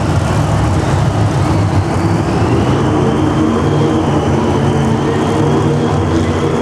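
Monster truck engine running loud at high revs. It is rough and noisy at first, then settles about two and a half seconds in into a steady note, with a high whine that rises and then holds.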